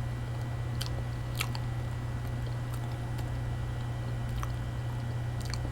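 A person chewing banana: soft, wet mouth sounds with a few faint clicks, over a steady low hum.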